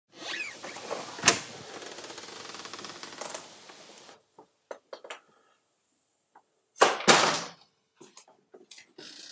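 Handling noises: about four seconds of rustling and clicking with a sharp click about a second in, then scattered light clicks and a loud double knock or clatter about seven seconds in.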